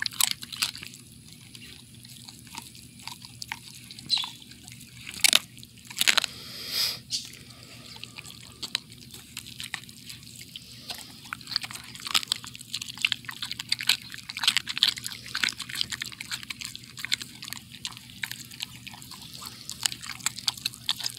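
Dog chewing and gnawing a piece of raw rabbit, with irregular wet clicks and crunches of meat and bone, a few louder crunches about five to six seconds in.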